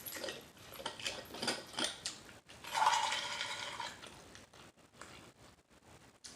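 Plastic water bottle cap being twisted open: a run of small ratcheting clicks, then a louder noisy stretch of about a second near the middle, and faint clicks after it.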